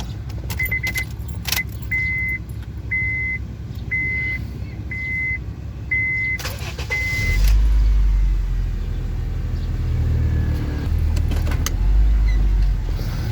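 A first-generation Honda Fit's warning chime beeps about once a second, seven times, with keys jangling; then, about seven seconds in, the engine starts and runs with a deep rumble. This is the test start after a worn engine mount has been replaced.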